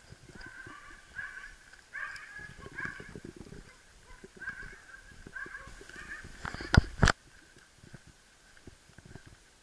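Footsteps of a walker and two dogs on a wet asphalt path, heard as uneven soft knocks with some faint higher scraping and clinking. Two sharp clicks come close together about seven seconds in, after which the steps are quieter.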